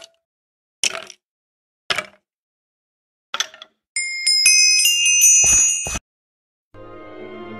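A few short sharp hits about a second apart, then a loud high chiming jingle of several bell-like tones lasting about two seconds. It stops dead, and after a short silence orchestral music begins near the end.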